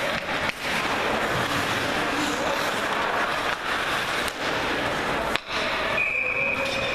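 Ice hockey game in a rink: a steady din of voices and play with a few sharp knocks of sticks and puck, then near the end a referee's whistle, one steady high blast of about a second, stopping play.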